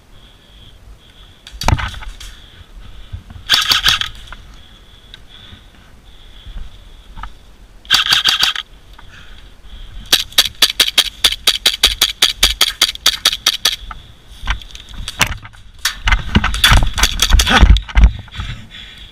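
Airsoft guns firing: short full-auto bursts of clicks, then about 10 s in a rapid string of pistol shots at roughly six a second for several seconds. Near the end, heavy thumping and rustling with more shots as the wearer moves fast.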